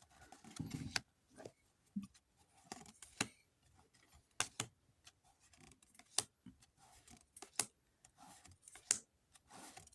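A Pokémon card booster pack being opened and its cards handled: an irregular scatter of short, sharp crinkles and clicks from the wrapper and cards.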